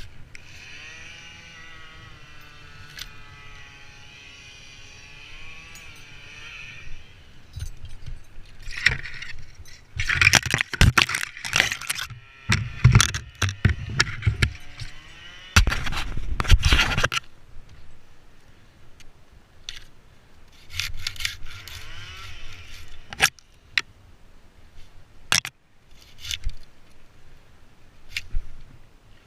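Wood and brush scraping and crackling, with loud clusters of sharp cracks and snaps for several seconds near the middle, like cut limbs and branches being dragged and broken.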